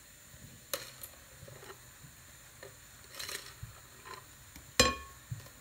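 Thick batter being poured and scraped out of a glass mixing bowl into a glass baking dish: a few soft clicks and a short scrape, then one sharp clink of glass with a brief ring about five seconds in.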